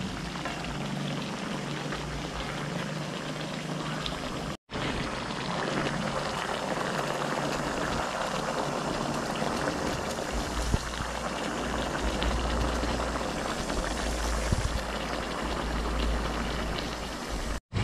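Chicken adobo bubbling steadily as it cooks in a pan, briefly cut off twice.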